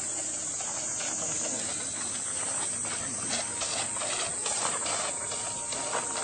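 Steady hiss of an outdoor handheld recording, with a few soft clicks in the second half.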